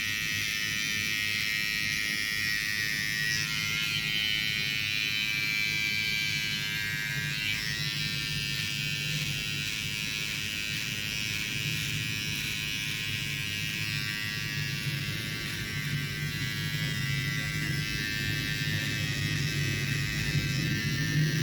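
Electric hair clippers running steadily with a continuous buzz.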